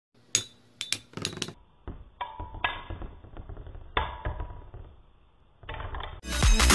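A run of sharp clinks and knocks, scattered and irregular, with electronic music starting near the end.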